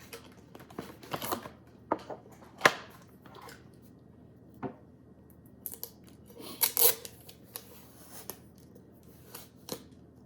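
A plastic snack wrapper being handled and opened: irregular crinkling, clicks and tearing, loudest about two and a half seconds in and again around the middle.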